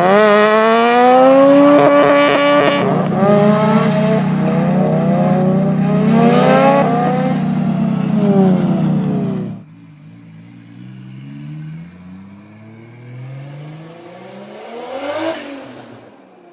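Hyundai Genesis Coupe with a loud exhaust accelerating hard, the engine pitch climbing in several runs as it goes up through the gears. About nine and a half seconds in the sound cuts off abruptly to a much quieter engine accelerating, with a brief louder peak near the end as a car passes by.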